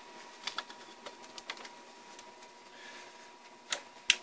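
Scattered light clicks and taps, with two sharper clicks near the end, over a faint steady high-pitched tone.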